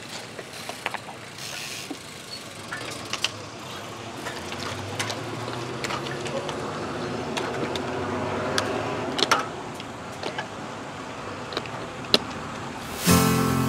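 Road traffic: a motor vehicle's engine grows louder over several seconds and passes, over steady road noise with scattered sharp clicks. Music comes in just before the end.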